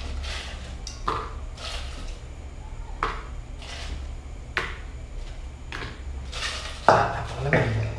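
Ice pick chipping ice in a metal pot: about six sharp knocks at uneven intervals, the loudest near the end.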